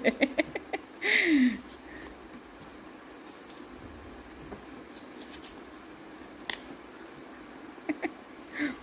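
Soft scrapes and taps as a kitten bats at a plastic strip toy among the sisal posts and carpet of a cat tree. About a second in there is a brief louder sound with a falling pitch, and a few clicks come near the end.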